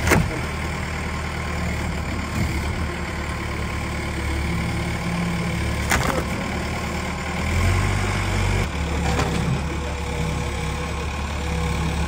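Engine of heavy machinery idling steadily, a low even hum, with a sharp knock about halfway through.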